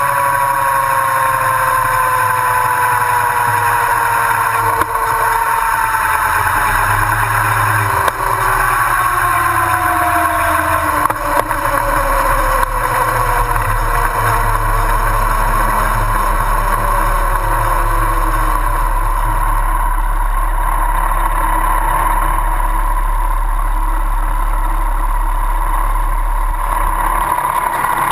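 Yamaha R1 inline-four engine with wind rush, the bike slowing: engine pitch falls steadily, jumps back up once about eight seconds in and falls again, then settles to a steady idle as the wind noise dies away in the last third.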